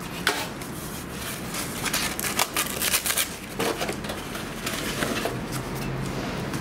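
Cardboard packing being pulled and worked out of a portable barbecue's metal case: crinkling and scraping of card against the metal, with a string of short sharp scrapes and knocks.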